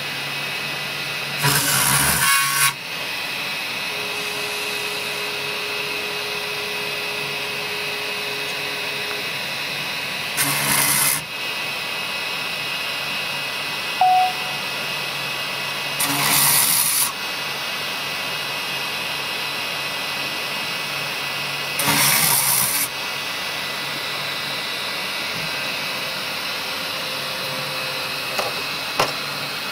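Spindle milling head on a Hyrel 3D printer running with a steady high whine, its end mill cutting through copper traces on a circuit board four times; each cut is a harsh burst about a second long.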